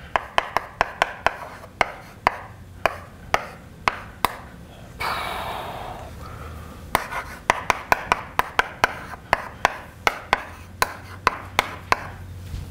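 Chalk writing on a blackboard: a rapid, irregular run of sharp taps as each symbol is struck, with a longer rasp lasting about a second around five seconds in.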